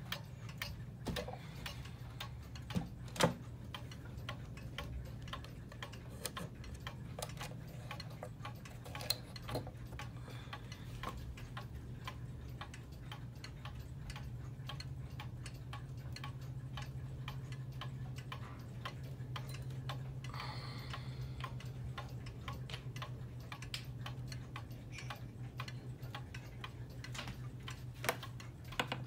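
Antique Girod weight-driven wall clock ticking steadily, its escapement clicking in an even rhythm over a steady low hum, with a few louder knocks here and there.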